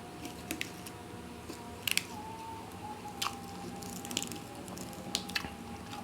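Close-up eating sounds: wet chewing and mouth noises from a meal of rice and side dishes, with a few sharp clicks scattered through.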